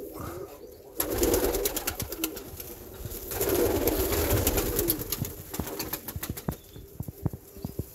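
A young pigeon being handled and lifted out of its straw-lined wooden nest box: rustling, scuffing and clicks of the bird and hand against the straw and box, with a louder stretch of rustling about three seconds in. Pigeons coo in the loft.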